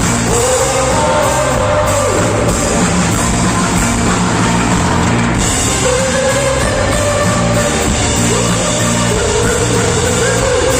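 Rock song: a singer holds long notes, three times, over a drum kit and band.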